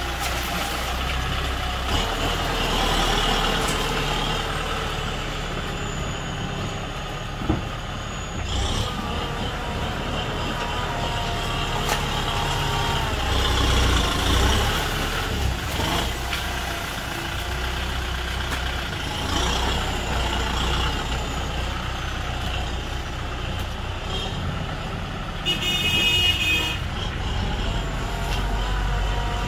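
Kubota M6040 tractor's diesel engine running under load as its front blade pushes soil and a stump, its level swelling and easing throughout. There is a sharp click about seven seconds in and a brief high-pitched tone near the end.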